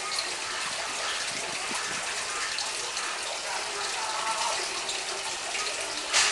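A steady rushing hiss, with a single sharp click about six seconds in.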